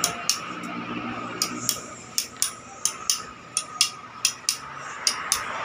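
Small hammer tapping metal on a hydraulic bottle jack during a repair: a run of light, sharp metallic taps, mostly in quick pairs.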